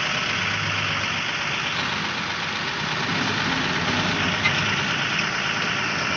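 Six-wheeler truck's diesel engine running steadily, heard from inside the cab.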